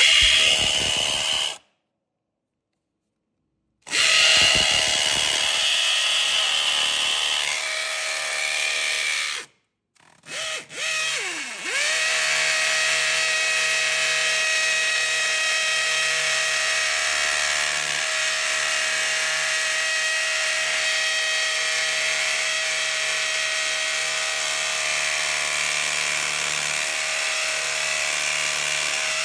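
Electric concrete drill boring holes in concrete, running in stops and starts. It runs briefly, pauses for about two seconds, runs again for about five seconds, gives two short blips, then spins up and runs steadily to the end.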